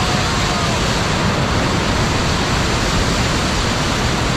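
Floodwater rushing past, a loud, steady wash of water noise.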